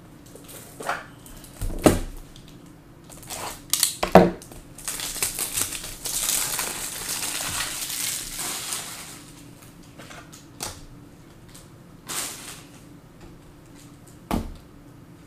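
Trading-card boxes and packs being handled at a table: sharp clicks and knocks of card and plastic packaging, with a few seconds of rustling and tearing around the middle.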